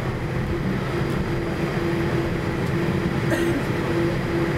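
Boeing 787 Dreamliner taxiing, heard from inside the passenger cabin: a steady rumble of the engines and cabin noise with a held low hum-tone running through it.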